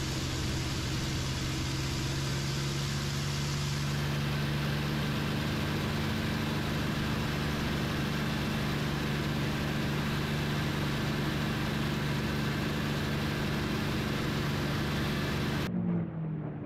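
P-51 Mustang's Merlin V12 engine running steadily, heard from inside the cockpit as a loud, even drone over a dense rush of noise. About a second before the end it cuts to a quieter, thinner sound of aircraft engines whose pitch shifts.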